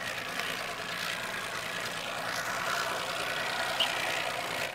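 Outboard motor idling with a steady hum.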